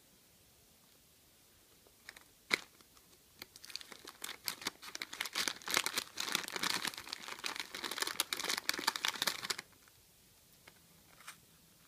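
Plastic wrapper of a chocolate digestive biscuit packet crinkling as it is opened and a biscuit is pulled out, a dense crackle that starts about three and a half seconds in and stops near the end, after a single sharp click.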